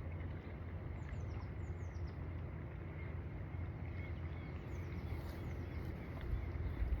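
Outdoor ambience: a steady low rumble with small bird calls, quick high falling chirps heard in two short runs, about a second in and again past the middle.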